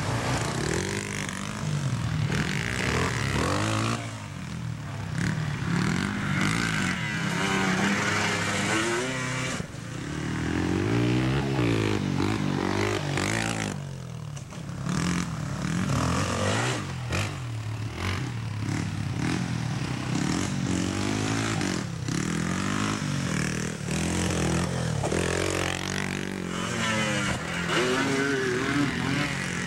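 Dirt bike engines revving hard and passing close by, the engine pitch climbing and falling repeatedly as the riders accelerate, shift and back off.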